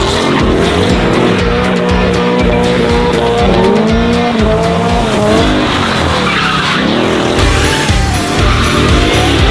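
Several car engines revving up and down as the cars race and slide around, with background music that has a steady beat underneath.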